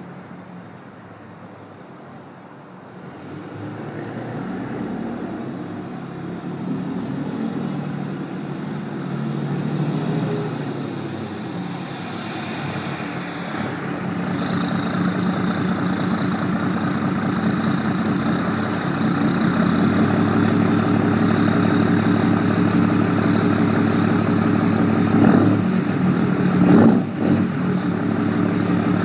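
Cummins 6.7 turbo-diesel truck engine pulling under load while driving, its variable-geometry turbocharger whistling. About twelve seconds in a high whistle glides down, then holds steady over the engine as the engine grows louder; two brief louder bumps come near the end.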